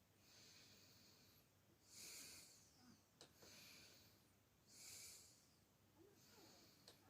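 Near silence with faint, slow breathing close to the microphone: several soft breaths in and out, about one every one to two seconds.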